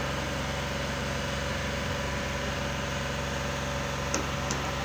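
Mobile crane's diesel engine running at a steady idle-like hum as it holds the lift, with a few light clicks near the end.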